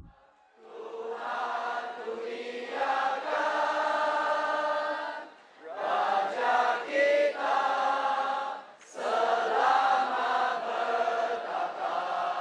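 A crowd of voices chanting together in unison, held on long notes, in three long phrases with short breaks between them.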